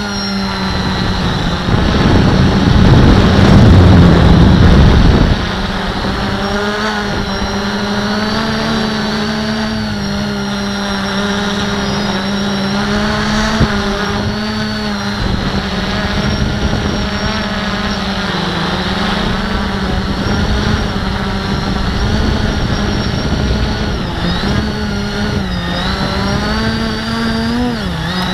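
Q450 quadcopter's brushless motors and propellers humming steadily, as heard from the camera on board, the pitch wavering up and down as the throttle changes. About 2 to 5 seconds in, a louder rushing noise rises over the hum.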